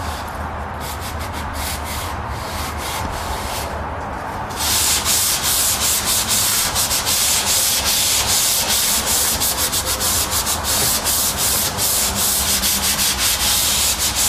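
Sandpaper rubbed by hand over the wall surface at the edge of a recessed wall fixture. Light, steady rubbing for the first few seconds, then faster, louder back-and-forth strokes, several a second.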